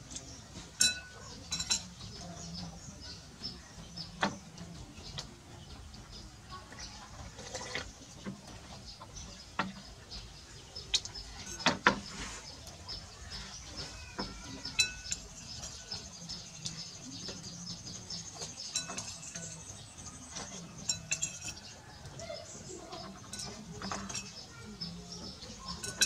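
Metal spoon clinking against ceramic bowls, in scattered sharp clinks every few seconds.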